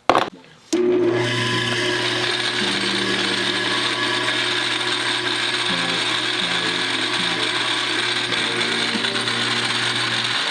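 A knock, then an electric power tool's motor starts up and runs steadily with a constant hum and a hiss above it, stopping just before the end: the tool in use for polishing the rifle screws.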